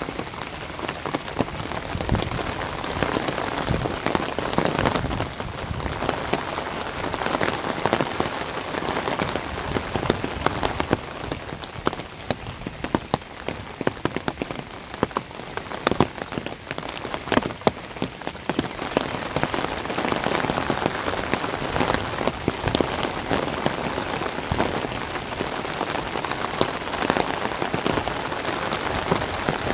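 Heavy rain falling steadily on trees, grass and a waterlogged field, with many sharp close drop hits through the steady hiss.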